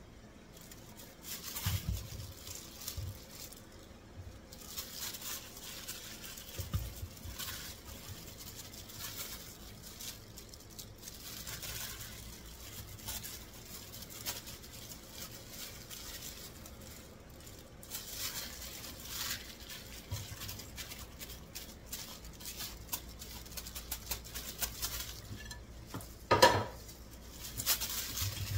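Spices and sliced onion being scraped off a plate into a steel mixing bowl of gram flour by a plastic-gloved hand: a run of soft scrapes, rustles and light taps, with one loud ringing clink near the end.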